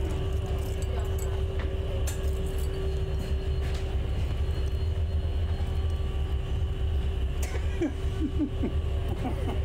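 Inside a double-decker bus: the steady low rumble of its engine and running gear, with a constant hum and a few faint clicks and rattles.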